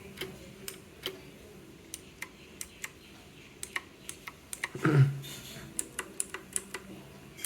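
Outemu Blue clicky switches on a Cosmic Byte Vanth mechanical keyboard, keys pressed slowly and lightly one at a time, each a sharp 'tak' click, coming closer together near the end. A short low hum about five seconds in is the loudest sound.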